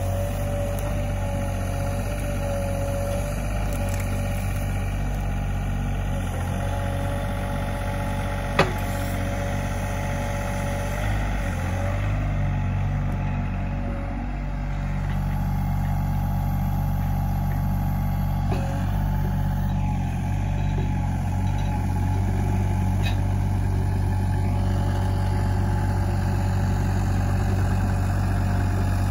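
Sany SY35U mini excavator's diesel engine running steadily as the machine tracks and works. A thin high whine sits over the engine for the first twelve seconds or so, and there is a single sharp clank about eight and a half seconds in.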